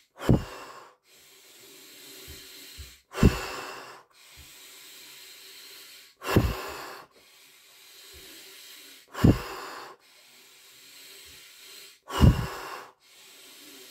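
A man breathing deeply and rhythmically through a guided breathing exercise, with about five cycles. Each cycle is a loud, sharp breath that fades quickly, followed by a quieter, longer breath, about every three seconds.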